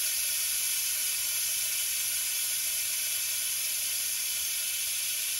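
Compressed-air venturi coolant vacuum tool hissing steadily as shop air rushes through it, pulling a vacuum on the engine's cooling system before the refill.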